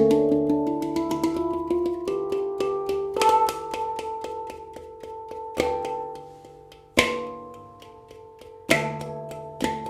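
Handpan tuned to a D Kurd Hijaz scale, played by hand. Quick, light, rhythmic taps let several notes ring and overlap, broken by a few louder accented strikes, the strongest about seven seconds in.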